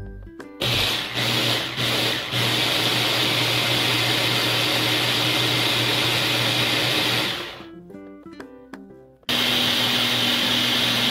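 Electric mini food chopper running as it purées blanched cauliflower with cream: a few short pulses, then a long steady run, a stop of under two seconds, and the motor starting again near the end.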